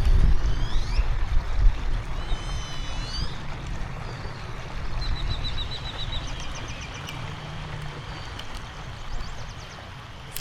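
Several birds chirping and trilling, with quick rising whistles and short rapid runs of notes, over a steady low rumble that fades over the first few seconds.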